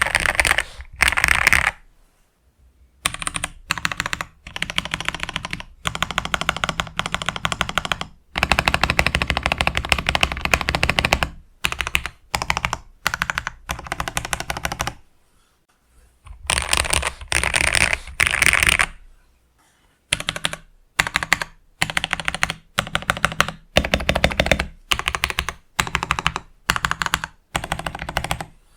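Mechanical keyboard being typed on quickly, in runs of rapid clacking keystrokes lasting one to three seconds with short pauses between them.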